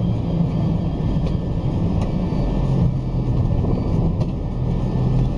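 Bus engine running with a steady low hum and road noise, heard from inside the moving bus.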